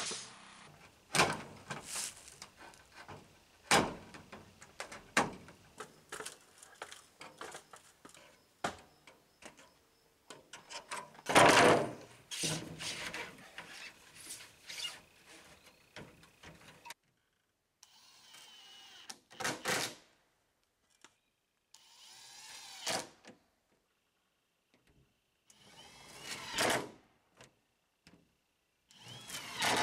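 Sharp nail-gun shots and knocks on wooden door trim, with the loudest flurry about eleven seconds in. After that come short separate bursts of a cordless drill whirring as it drives screws into the polycarbonate roofing.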